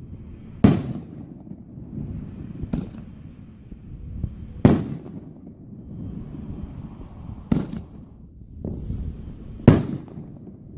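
Fireworks bursting: five loud sharp bangs about two seconds apart, with rumbling and crackle filling the gaps between them.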